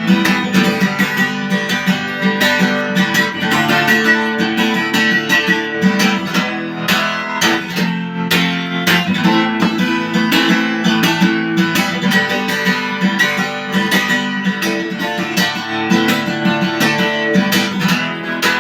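Acoustic guitar strummed in a steady rhythm, an instrumental break of the song without singing.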